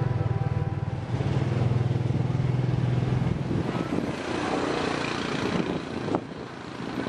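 An engine running steadily, with a strong low pulse, for about three seconds. It then gives way to a noisier rushing sound, and there is a single sharp knock near the end.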